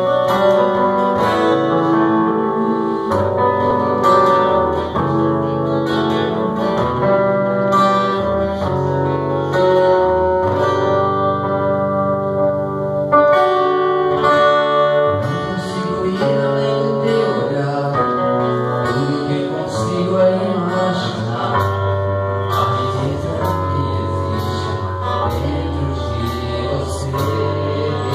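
Live gospel music: a male singer with acoustic guitar and keyboard accompaniment.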